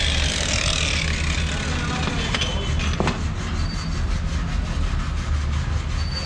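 Steady low mechanical rumble, with a high hiss that fades out about a second in and two sharp knocks about half a second apart near the middle.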